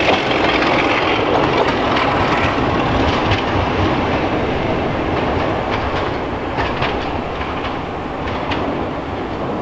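Diesel-hauled passenger train running away down the line: a steady rumble with the wheels clicking over rail joints, fading gradually as it recedes.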